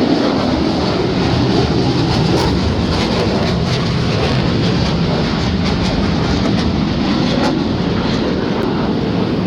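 Fighter jets flying overhead: a loud, steady roar.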